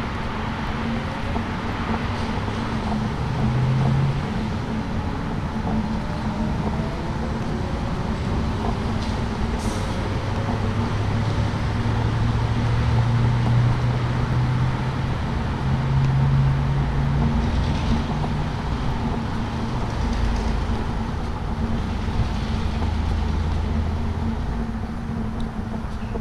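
Street traffic on a city avenue: a steady wash of tyre and engine noise, with a heavy vehicle's low engine drone swelling and fading past about halfway through.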